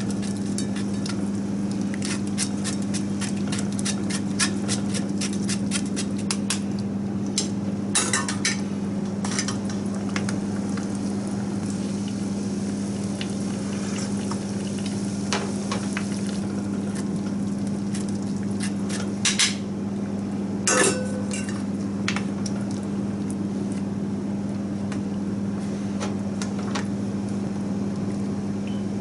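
Utensil clinking and tapping against a metal mesh strainer and an aluminum pot as white miso is pressed through into simmering broth. The taps come in quick clusters over the first several seconds, then as a few scattered louder knocks, over a steady low hum.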